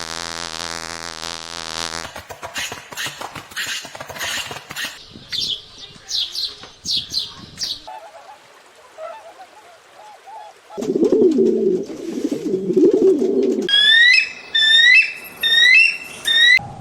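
A sequence of bird sounds. It opens with a low buzzing tone for about two seconds, then rapid fluttering, a run of short high chirps, a loud low warbling coo in the middle, and a series of short rising calls near the end.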